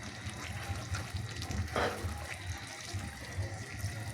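Spaghetti being stirred into a wet minced-meat sauce in a pot: a soft, watery churning over a low steady hum, with one brief louder sound a little under two seconds in.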